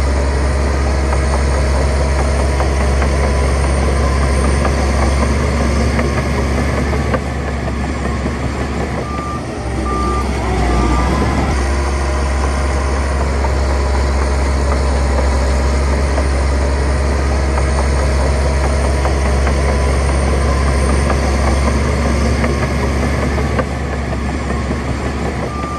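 Heavy diesel engine running steadily under load, with a reversing alarm beeping three times about nine seconds in, as a truck or dozer backs up.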